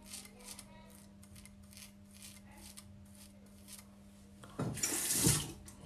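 Straight razor scraping through lathered beard stubble in short strokes, about four a second, over a low steady hum. Near the end comes a louder rush of noise lasting about a second.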